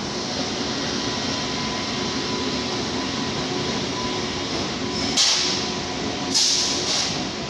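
Passenger train arriving at the station on a far track: a steady rumble of the locomotive and coaches rolling on the rails, with two short bursts of high hiss about five and six seconds in.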